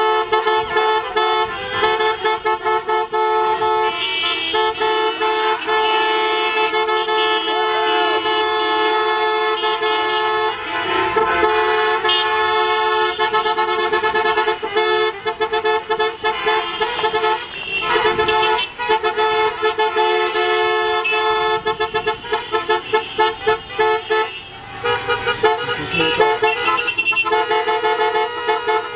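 Many car horns honking together almost without a break: several horns of different pitches held in long blasts, with bursts of short toots, as a convoy of cars honks in celebration.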